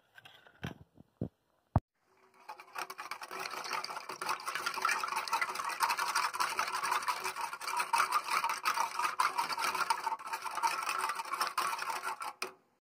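A spoon stirring milk porridge briskly in a small aluminium saucepan on the stove, a fast steady scraping against the pan that starts about two seconds in and stops suddenly near the end. A few sharp clicks come before it.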